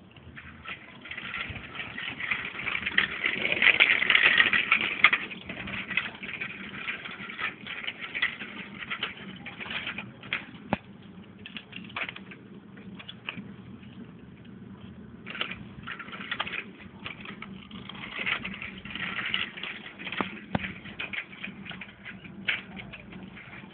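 A child's small bicycle rolling along a concrete path, its tyres and frame giving irregular clicks and rattles over a hiss. The hiss swells about three to five seconds in.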